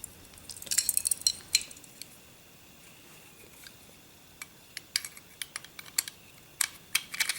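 Small steel parts clicking and clinking as the slide of a Norinco 213 pistol is worked onto its frame over the recoil spring. A quick run of clicks about a second in, a quiet stretch, then scattered single clicks through the last few seconds.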